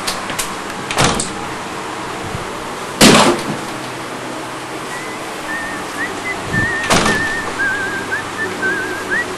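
A balcony door being handled, with a loud knock about three seconds in and another about seven seconds in, over a steady hiss. From about five seconds in, a thin wavering whistle comes in and goes on to the end.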